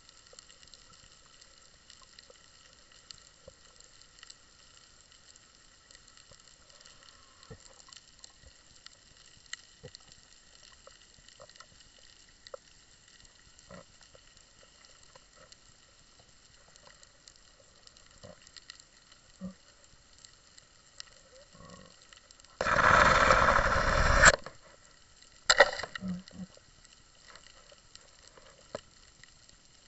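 Underwater ambience heard through a camera housing: faint scattered crackles and clicks over a low hiss. About three-quarters of the way through comes a loud rush of noise lasting about a second and a half, then a shorter one a second later.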